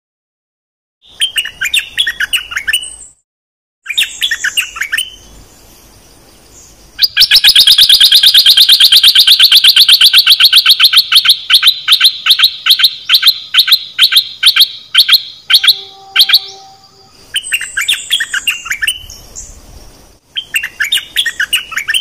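Caged bulbul (nok dok taeng decoy bird) singing: short bubbly warbled phrases, and in the middle a long run of loud repeated notes that starts fast and gradually slows.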